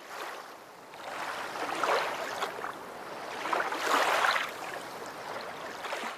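Water rushing and splashing, swelling loudest about two seconds in and again about four seconds in.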